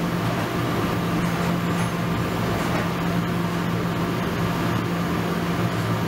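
An ultrasonic cleaning tank with a degassed fine-bubble liquid circulation system running, its water churning. It makes a steady low hum with a fainter higher tone over an even hiss.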